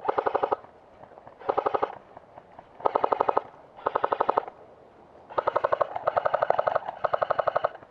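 Electric airsoft gun firing full-auto in short bursts, a rapid mechanical clatter with a buzzing gearbox note. About four short bursts are followed by a longer one of two to three seconds near the end.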